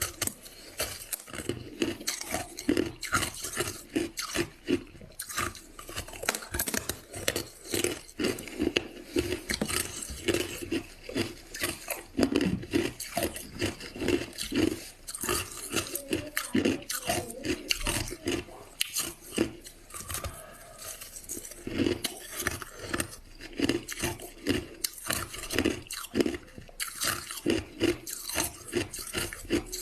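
Crushed ice being bitten and chewed, a dense, irregular run of sharp crunches that goes on throughout.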